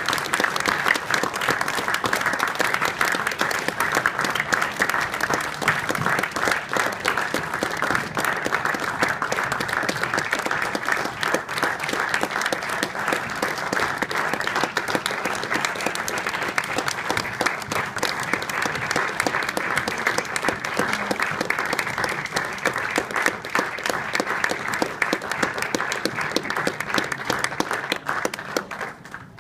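Audience applauding steadily, a dense clatter of many hands clapping that dies away near the end.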